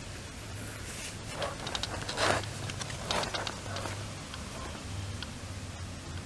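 Rustling and handling of a handmade spiral-bound book as it is moved about, with a few short rustles, the loudest about two seconds in, over a steady low hum.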